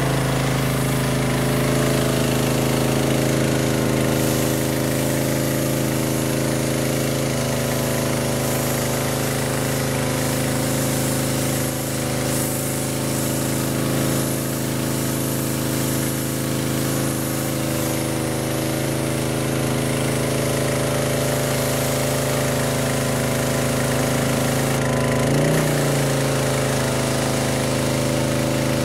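Kärcher 3000 PSI pressure washer's 9 hp Honda single-cylinder four-stroke engine running steadily, with the hiss of the high-pressure jet spraying onto concrete. Near the end the engine note dips briefly.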